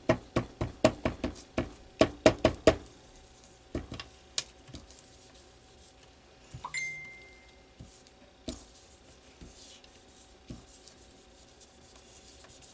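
Felt-covered alcohol ink blending tool being dabbed onto glossy cardstock: a quick run of light taps, about three to four a second, that stops about three seconds in, followed by a few scattered taps.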